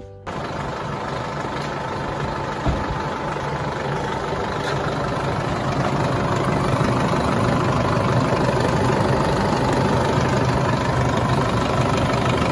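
Car engine idling steadily, heard up close in the open engine bay, with its air-conditioning compressor fitted with a new clutch plate. A single short knock about three seconds in.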